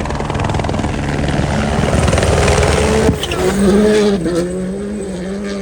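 Rally car engine at high revs on the stage, building in loudness, with a sharp crack about three seconds in, then running on a slightly wavering steady note.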